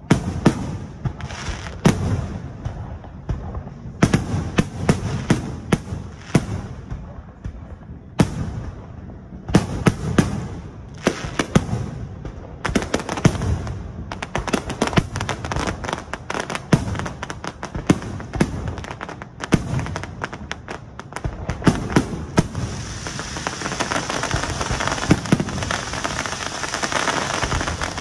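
Aerial fireworks shells bursting overhead in quick succession: sharp, echoing bangs, at times several a second. Near the end the separate bangs merge into a dense, steady hiss with bangs still breaking through.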